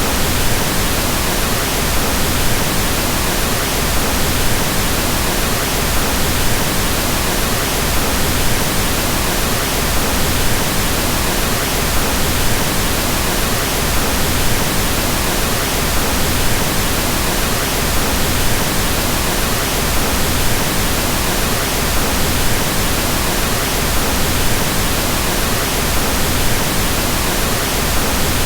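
Steady synthetic pink noise: an even, unchanging hiss with more weight in the low end, constant throughout.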